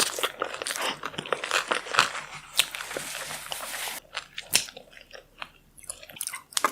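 Close-miked mouth sounds of someone biting into and chewing crunchy food, with crisp crunches. The crunching is dense for about four seconds, then thins out to scattered, quieter chews.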